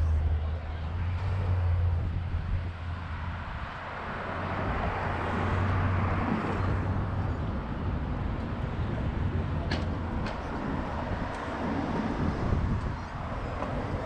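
City street traffic going by: a low engine rumble for the first few seconds, then a car passing with rising and falling tyre and engine noise about five to seven seconds in.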